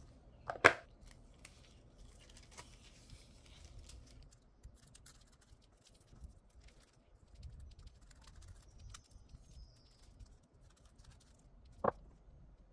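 Small scissors snipping nail transfer foil, with light crinkling of the foil and scattered faint ticks. A sharp click about half a second in and another near the end.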